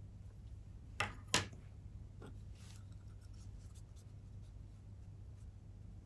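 Small plastic sling pots being handled: two sharp clicks about a second in, a fainter click shortly after, then light scratchy rustling over a steady low hum.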